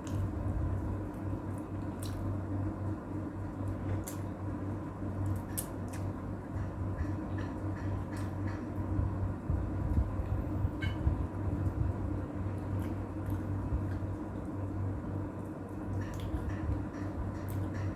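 Eating by hand: soft wet chewing and squishing of food, with a few light clicks, over a steady low hum.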